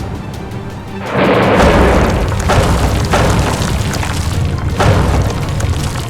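Music with heavy booming, growing much louder about a second in.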